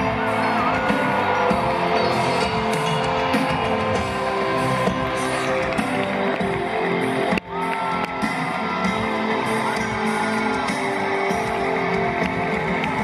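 Live band music from a concert stage, heard through the PA from the audience seats. The sound drops out briefly about seven seconds in, where the recording cuts.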